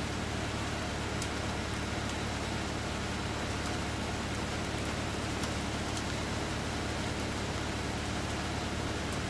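Steady hiss with a low, steady engine hum underneath from an idling 4x4 pickup, and a few faint ticks scattered through it.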